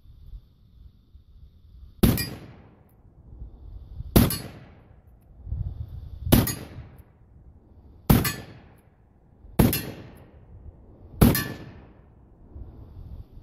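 Six shots from a Pietta 1851 Navy Confederate .44 sheriff's model cap-and-ball revolver, fired one at a time about two seconds apart, each with a short echoing tail: the whole cylinder emptied.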